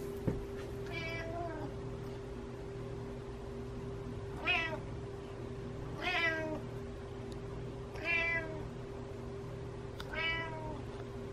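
Domestic cat meowing repeatedly: five meows about two seconds apart, each rising then falling in pitch. A steady low hum runs underneath, with a sharp click near the start.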